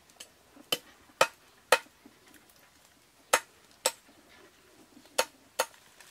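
A knife chopping down onto a wooden cutting board: seven sharp chops, three about half a second apart, then two, then two more near the end.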